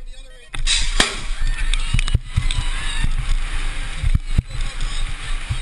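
BMX start gate dropping with a sharp bang, then loud rushing wind noise and rattling on a helmet-mounted GoPro as the rider sprints out of the gate, broken by several sharp knocks from the bike and track.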